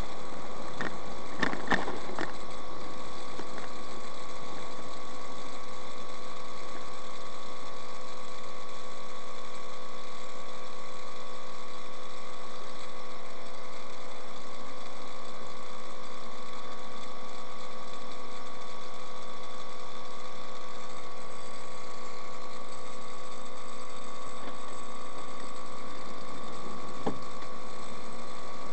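Steady drone and hum inside a moving vehicle, picked up by a windshield dashcam, with a few short clicks about a second in and a single click near the end.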